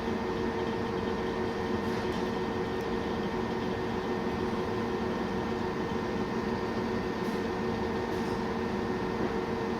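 Steady hum of running equipment: an even fan-like rush with a few fixed tones, unchanging throughout.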